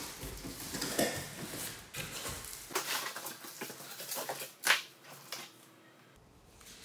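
Cardboard shipping box being opened by hand: flaps pulled back and scraped, with irregular rustling and a few sharper knocks, the loudest about two thirds of the way through. Fainter paper rustling follows as instruction sheets are lifted out.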